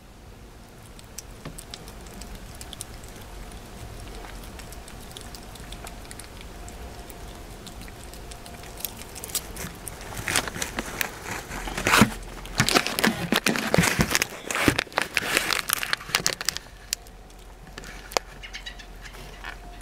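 A cat licking a Churu cat-treat paste from a squeezed plastic tube, with faint small licking clicks. From about ten seconds in, a stretch of loud crinkling and crackling, the plastic tube and bag being handled close to the microphone, dies down near the end.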